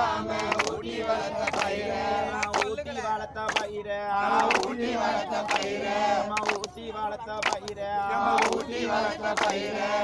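Group of men and women singing a devotional song together, with sharp hand claps repeating through it.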